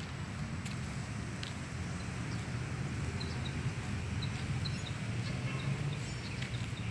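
Outdoor park ambience: a steady low rumble, with a few short, high bird chirps in the middle.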